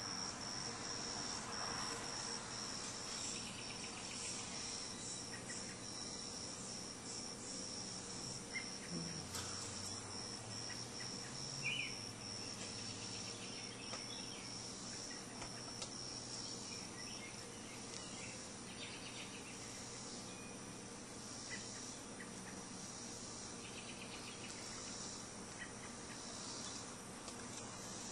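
Faint, steady high-pitched trilling of insects, which fades away about two-thirds of the way through, with a couple of faint knocks in between.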